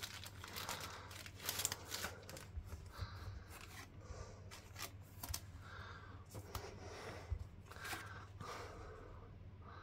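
Faint handling of trading cards: a card slid into a plastic card sleeve and laid on a cloth playmat, with scattered soft clicks and rustles.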